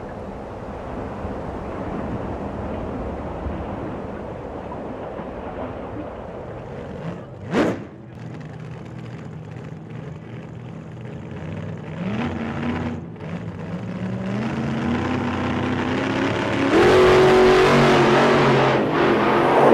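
Wind rumbling on the microphone, with a short whoosh about seven seconds in. Over the last several seconds a louder mix of pitched sound with voices builds up.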